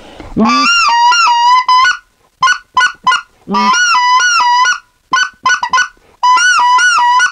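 Short-reed goose call blown to imitate white-fronted geese: three quick runs of honks, each note breaking sharply up in pitch and back down, with short clipped clucks between the runs. Each note starts with a hard tongue attack, the struck technique.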